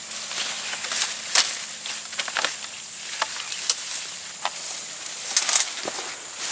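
Leaves and stems of cassava plants and undergrowth rustling and crackling as a person pushes and crawls through them, with irregular sharp snaps about a dozen times.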